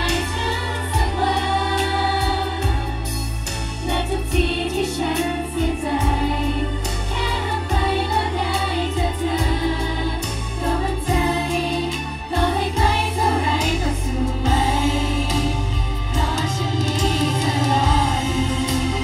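A girl group singing a pop song together over a backing track with a heavy bass beat, played loud through a concert sound system.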